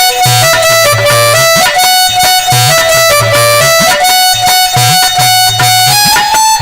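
Instrumental music: a reedy melody instrument plays a tune in short held notes over a steady drum beat.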